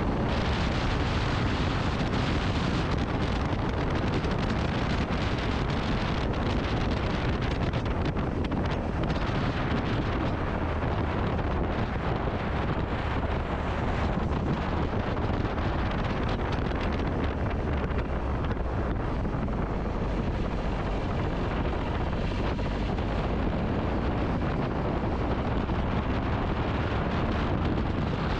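Wind buffeting the microphone of a motorcycle riding at speed: a steady, dense rush of noise, heaviest in the low end, with the bike's running mixed into it.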